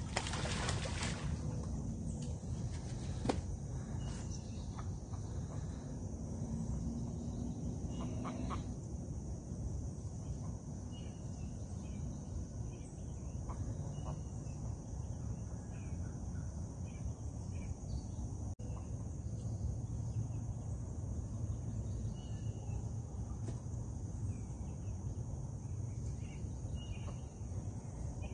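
Outdoor ambience: a steady low rumble on the microphone under a steady high insect drone, with scattered short bird chirps from about ten seconds in.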